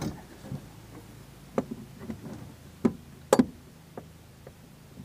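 A handful of separate sharp knocks and clicks, the loudest a close pair about three and a half seconds in, from a car jack being worked by hand at the base of a jammed boat pedestal seat post.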